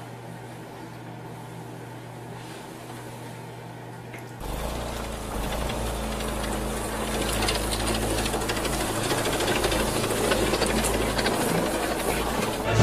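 A steady low hum, then about four seconds in a lawn mower engine cuts in and keeps running loudly with a rough, dense rumble.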